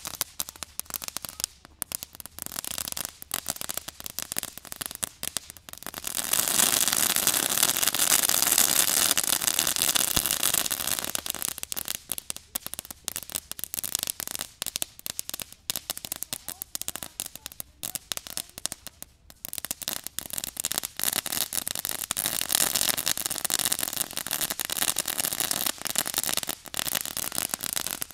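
A ground firework burning and spraying sparks, with rapid crackling throughout. A louder, steady hiss comes from about six to eleven seconds in, and the crackling grows denser again near the end.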